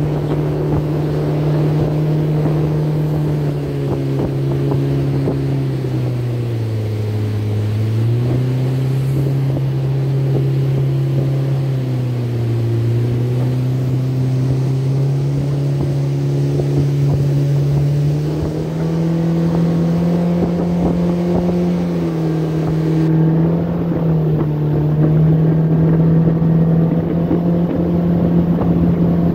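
Jet boat engine running under way on a river, a steady loud drone whose pitch dips twice, about seven and twelve seconds in, then climbs a little past halfway.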